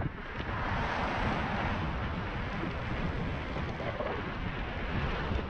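Wind rushing over the microphone of a rider moving along on an electric unicycle: a steady noise that rumbles at the low end, with no distinct events.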